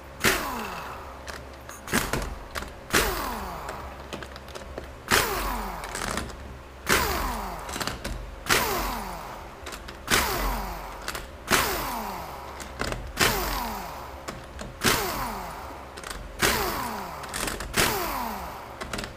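A power tool spinning out the 10 mm bolts that hold a 4R100 automatic transmission's pump body to its pump cover. It runs in short bursts about every second and a half, and each burst falls in pitch as the tool winds down.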